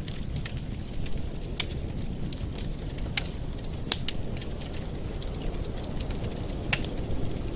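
Campfire burning with a steady low rumble and scattered sharp crackles and pops from the wood, several louder snaps among them.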